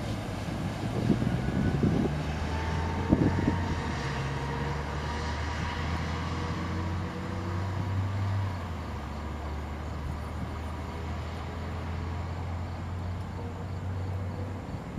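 SEPTA electric commuter train (Silverliner multiple-unit cars) rolling away down the track: a few wheel knocks over the rail joints in the first seconds, a faint rising motor whine, and a steady low hum that eases a little after about eight seconds as it recedes.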